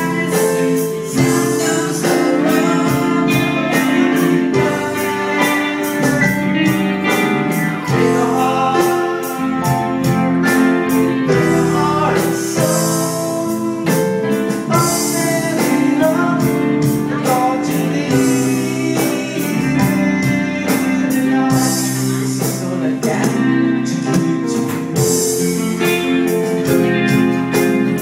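A man singing into a microphone over his own electronic keyboard playing, with sustained chords and a steady drum beat.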